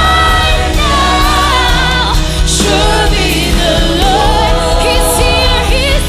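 Gospel worship song sung by a group of singers, long held and gliding sung notes over a steady bass accompaniment.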